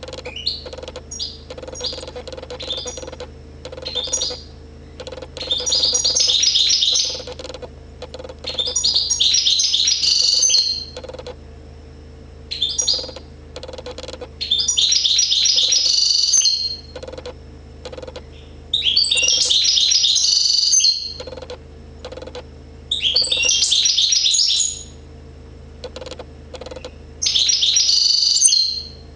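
Goldfinch singing: bursts of rapid, high twittering song about two seconds long, repeating every three to four seconds, with short single chirps in between. A steady low hum runs underneath.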